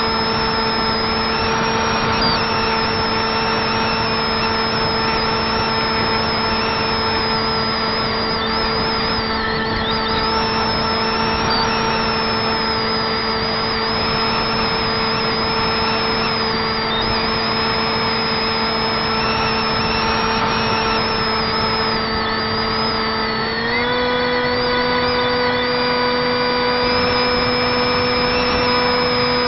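Electric motor and 6x4 propeller of a Zeta Wing Wing Z-84 flying wing under power in flight, a steady whine over rushing air, heard from on board the aircraft. About 24 seconds in the pitch steps up slightly and stays there.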